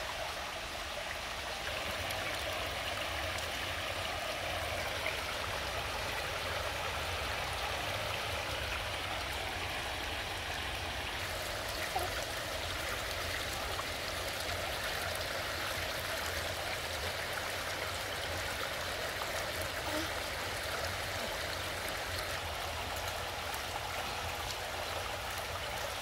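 Steady splashing of a row of small bubbler fountain jets spouting up through shallow pool water.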